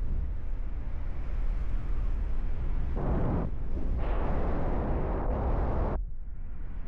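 Wind buffeting the microphone of a paraglider pilot in flight, a steady low rumble. Between about three and six seconds in, a brighter hiss rises over it and cuts off suddenly.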